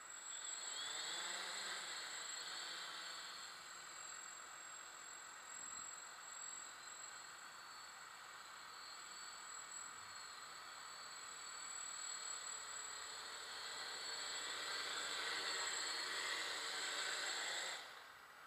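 Small multirotor drone's electric motors and propellers spinning up with a rising whine at takeoff, then a steady buzzing hum with a high whine while it flies. It grows louder near the end and cuts off suddenly as the motors stop after landing.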